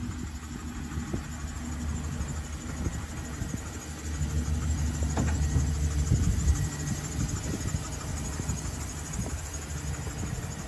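2013 GMC Sierra 1500 pickup's engine idling steadily, louder for a few seconds around the middle.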